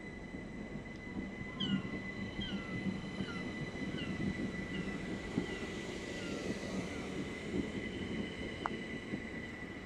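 Southern Class 377 Electrostar electric multiple unit pulling out of the station: a low rumble of wheels on rail with a steady high electric whine. From about two seconds in, a run of short falling chirps repeats under a second apart for about five seconds.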